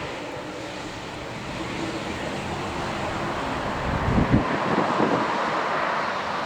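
Aircraft engine noise with strong wind gusting on the microphone, the buffeting heaviest about four to five seconds in.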